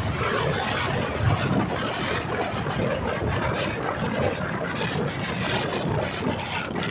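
1974 Triumph Trophy 500's parallel-twin motorcycle engine running steadily, mixed with a dense, even rushing noise.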